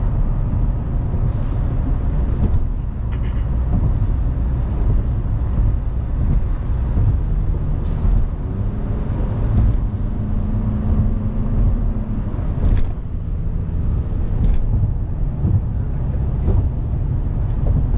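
Inside a moving car's cabin: steady low road and engine rumble, with a few faint clicks.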